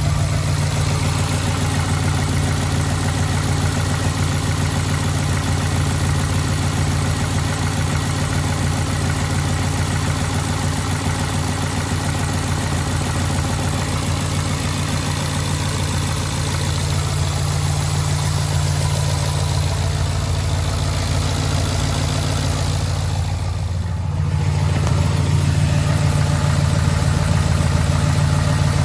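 2011 Ford F-150's 5.0 V8 engine running at a steady idle, with a knock that the owner takes for rod knock. It dips briefly near the end, then runs on a little louder.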